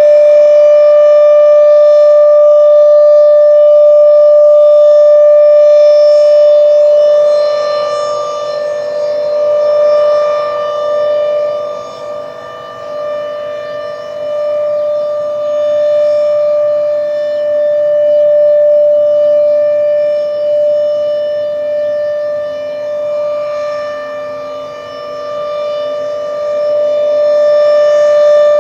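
Low-pitched Thunderbeam RSH-10 rotating warning siren sounding a steady alert tone, one held pitch with a ladder of overtones. The rotating horn makes it loud at first, then fade about twelve seconds in, swell again, dip once more and come back loud near the end.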